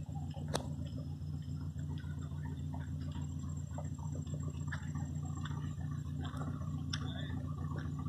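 Woodpecker tapping at a wooden utility pole: scattered single knocks, the sharpest about half a second in and another about seven seconds in, over a steady low hum.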